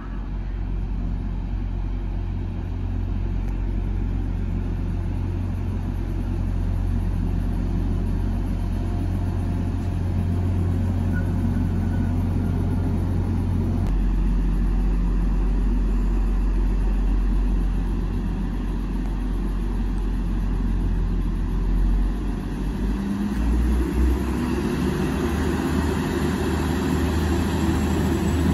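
Diesel engines of a Class 175 diesel multiple unit running with a steady low hum at the platform. Near the end the engine sound grows louder and a thin high whine rises as the train starts to move off.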